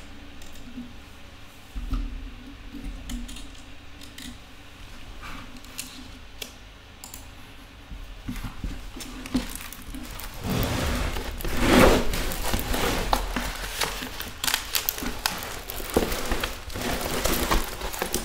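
Diamond painting canvas with its glossy protective plastic film rustling and crinkling as it is unrolled and handled. There are irregular crackles throughout, and it is loudest for a few seconds a little past the middle.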